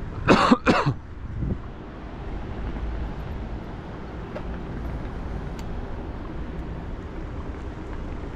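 A person coughs twice in quick succession just after the start, then steady low wind and road rumble from riding a bicycle along city streets.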